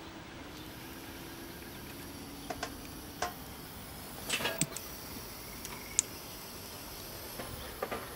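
Sony Trinitron KV-1722 portable colour TV powering up straight from the mains: a faint low hum sets in just after the start and fades over about two seconds, while a faint high whine from the horizontal output and flyback stage runs on. Scattered faint clicks and ticks are heard throughout.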